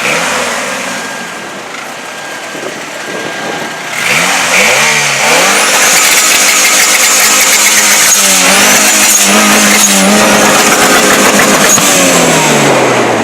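Loud car engine revving and accelerating hard. After a quieter first few seconds, its pitch climbs several times from about four seconds in, then falls away near the end.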